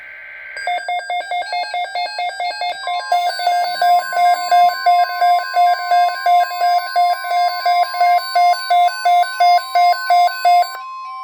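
Emergency Alert System alarm off NOAA Weather Radio: a short burst of digital data tones, then electronic alarm beeps at about two a second. About three seconds in, the steady 1050 Hz weather radio alert tone joins the beeps and holds to the end. The beeps and tone signal an incoming severe weather alert.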